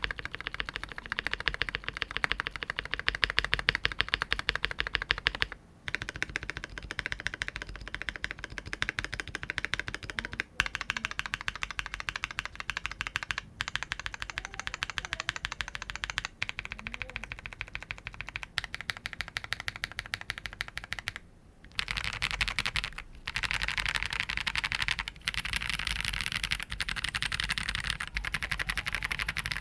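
Steady typing on a Cyberboard R3 mechanical keyboard with lubed, filmed Holy Panda tactile switches on an aluminium plate and GMK keycaps: a dense run of key clacks. It breaks off briefly three times, around 6, 10 and 21 seconds in, and sounds brighter in the last third.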